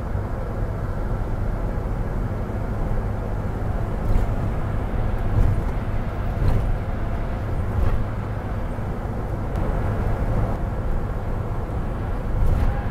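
Cabin noise of a Volkswagen Westfalia camper van driving at speed: a steady low rumble of engine and tyres, with a few light clicks and rattles.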